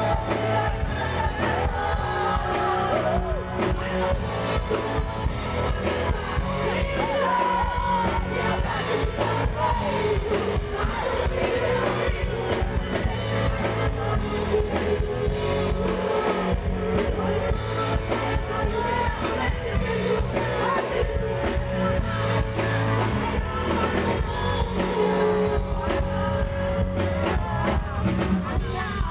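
A woman sings lead vocals live into a handheld microphone over pop-rock backing music with a steady drum beat.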